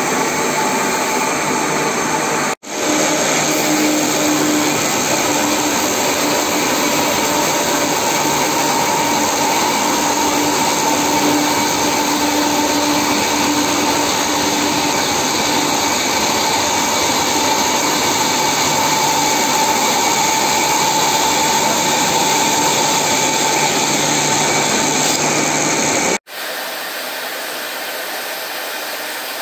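Foam-cutting machine running steadily with a loud, even whir as its blade slices through a polyurethane foam block. The sound drops out abruptly twice, and in the last few seconds it is quieter and thinner.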